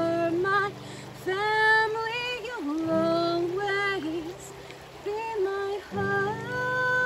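A woman singing wordless held notes to her own acoustic guitar, in several phrases with short breaks between them.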